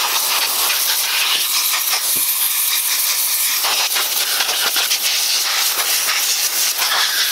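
Compressed-air blow gun hissing steadily as it blows cardboard shavings out of a new Cummins ISX piston.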